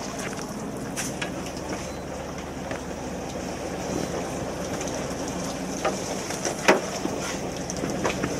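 Fishing boat's engine running steadily with a low hum, with a few sharp knocks and clicks of gear handled on deck, the loudest one a little before the end.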